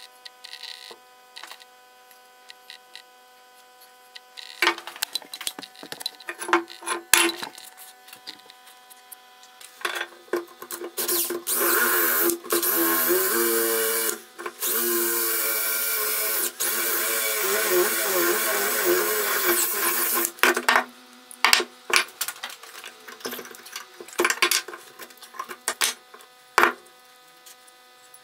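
Cordless DeWalt drill boring out the rotten wooden handle stub left in the eye of a rusty axe head. It runs loudly in two stretches from about a third of the way in, with a short break and its speed rising and falling. Before and after the drilling come scattered clicks and knocks of the iron head and tools being handled on a wooden bench.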